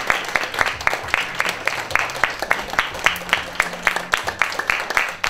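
A small audience applauding: many hands clapping unevenly, with individual claps standing out.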